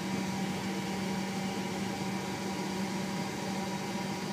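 Shinkansen restroom ceiling exhaust fan, two tiny computer-style fans behind a slotted grille, running with a steady whirring hum and a constant low tone.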